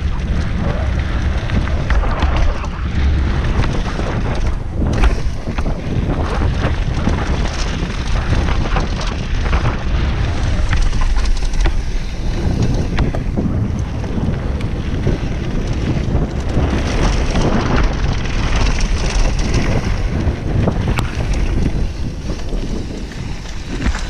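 Wind buffeting the microphone of a GoPro on a downhill mountain bike at speed, a steady low rumble, with tyres crunching over a loose gravel trail and many short rattles and knocks as the bike goes over bumps.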